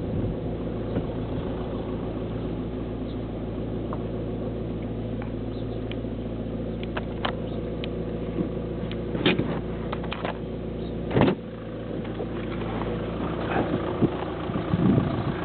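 Car engine idling with a steady low hum. A few sharp knocks or clicks come in the second half, the loudest about eleven seconds in.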